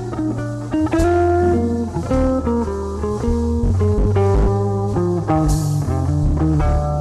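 Solid-body electric guitar playing a tune, with single notes and chords plucked over sustained low bass notes.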